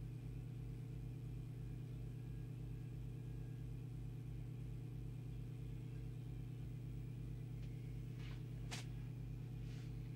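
Steady low mains hum from the transformers feeding a just-switched-on 1966 Heathkit valve transceiver and its power supply, running at half voltage off a 115 V auto-transformer. A couple of faint clicks come near the end.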